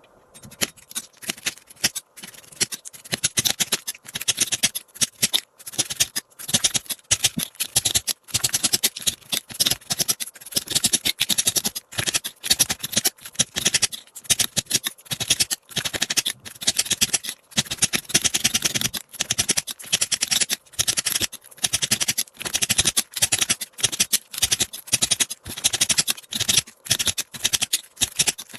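Slime being squished and stretched by hand: quick, repeated crackling pops coming in bursts a few times a second.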